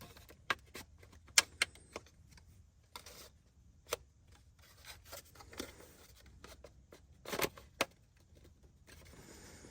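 Scattered sharp clicks and light knocks of plastic steering-column parts being handled and fitted, with faint rubbing between and a quick pair of knocks near the end.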